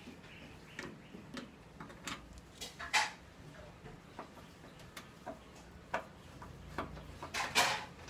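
Small screwdriver turning a screw in a microwave oven's sheet-metal front frame by the door latch, giving irregular clicks and scrapes of metal on metal, loudest about three seconds in and near the end.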